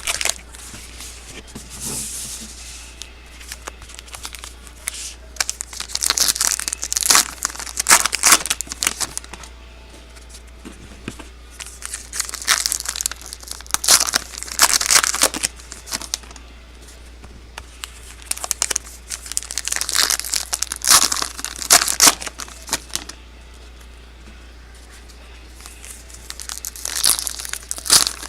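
Trading card pack wrappers being torn open and crinkled by hand, in four bouts of a few seconds each, with a low steady hum underneath.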